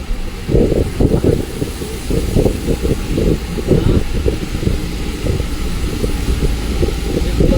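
Bus engine running, with rumble and irregular rattling from the moving bus.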